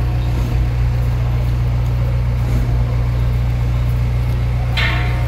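Steady low motor rumble, like an engine running at idle, with a short, bright, higher-pitched sound near the end.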